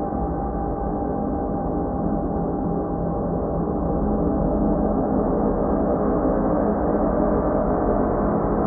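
Ambient background music: a dense drone of many held, gong-like tones with no distinct strikes, swelling slightly about halfway through.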